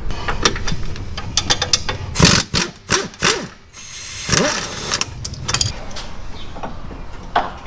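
Hand tools and steel suspension parts clanking as the rear sway bar end link bolts are worked loose: a quick run of clicks, then several loud knocks and a short noisy rattle.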